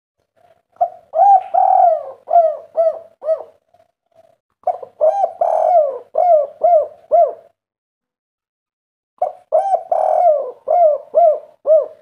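Spotted dove (tekukur) cooing three times. Each phrase is a longer opening coo followed by three short clipped notes, the 'kuk 3' song type.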